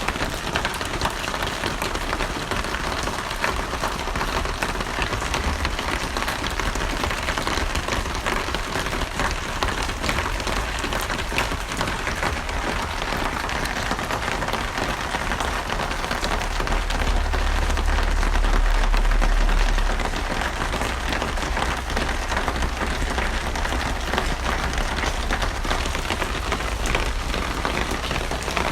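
Steady heavy rain falling, a dense patter of drops. A low rumble swells for a few seconds about two-thirds of the way through.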